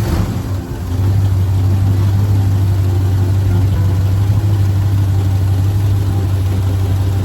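Motor vehicle engine running steadily, a constant low drone, with a brief dip in loudness about half a second in.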